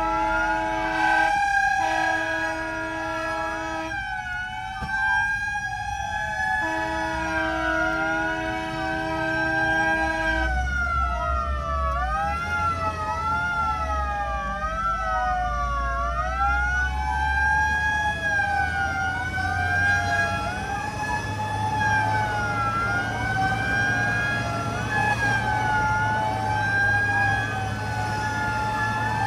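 Several fire-engine sirens wailing at once, their rising and falling pitches overlapping out of step. In the first ten seconds a steady held tone sounds and cuts out a few times. A low engine rumble runs underneath.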